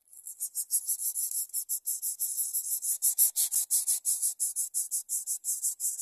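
Greater coucal nestlings begging for food as the parent feeds them: a rapid, high-pitched hissing call pulsing about seven or eight times a second.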